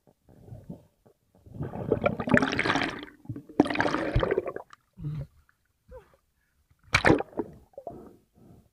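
Water splashing and gurgling around an underwater camera as a freediver rises to the surface, in two long stretches. A short, sharp splash comes about seven seconds in, followed by short water sounds about twice a second.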